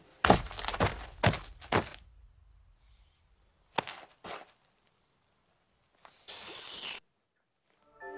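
Cartoon sound effects for an animated bird: about five heavy thuds in the first two seconds as it comes down onto the ground, then a faint high steady tone. Two sharp pecking taps come about four seconds in, and a short burst of hiss near the end.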